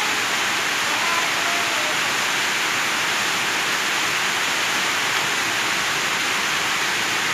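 Sausages sizzling steadily in hot oil in a frying pan.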